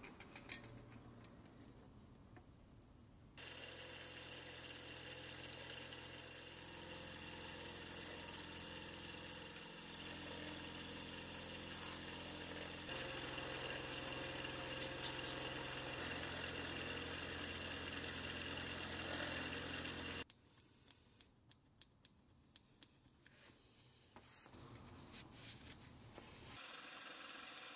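Vertical milling machine running, its end mill cutting a pocket into an aluminum block: a steady motor hum with cutting noise that begins a few seconds in and stops suddenly about twenty seconds in. A few light clicks follow, then a quieter mechanical noise near the end.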